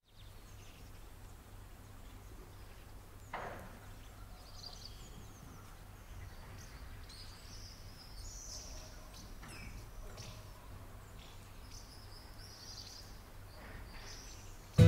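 Outdoor field recording: birds chirping and calling on and off over a steady low rumble, with one short knock about three seconds in.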